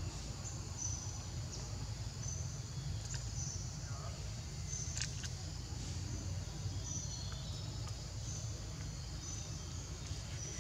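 Outdoor background: a steady low rumble with short, high chirps repeating every second or so, and a single sharp click about five seconds in.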